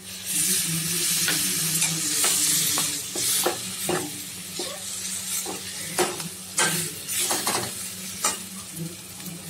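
Frying sizzle as frozen green peas go into the hot, spiced vegetable mash in a steel kadai, loudest in the first couple of seconds. A slotted steel spatula scrapes and taps against the pan about once a second as the peas are stirred in.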